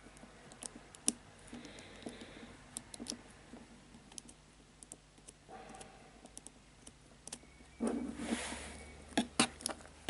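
Scattered small clicks of a combination cable lock's number wheels being turned one position at a time under finger tension, as the combination is decoded. A longer rubbing noise comes about eight seconds in, followed by a few sharper clicks.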